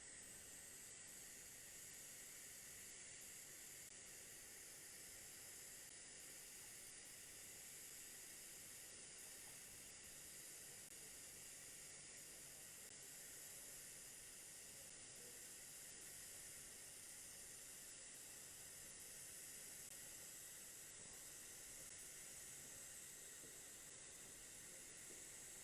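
Faint, steady hiss of a TIG welding arc laying a root pass on a duplex stainless steel pipe.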